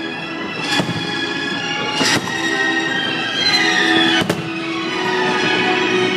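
Fireworks going off: sharp bangs about a second in, at two seconds and at four seconds, over music playing with sustained notes throughout.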